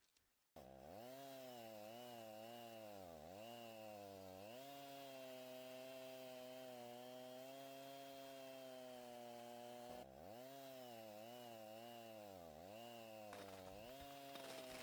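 Chainsaw engine running, its pitch dipping and recovering several times as it labours in a cut, then holding steady at high revs. It breaks off briefly near the middle and starts again with the same dips.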